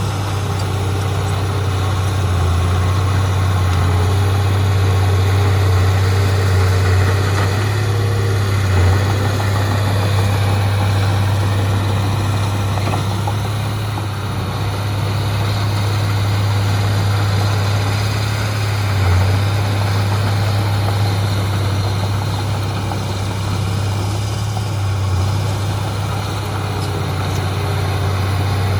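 Heavy diesel engine of earthmoving machinery running steadily, with a strong low hum and a few brief bumps in level.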